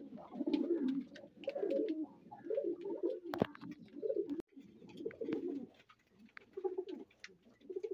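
Domestic pigeons cooing over and over, low burbling calls in short phrases, with a couple of sharp clicks in the middle.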